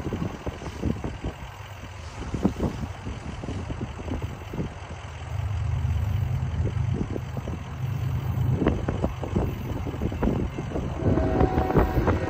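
Diesel freight locomotive running, its low rumble swelling about five seconds in, with wind buffeting the microphone.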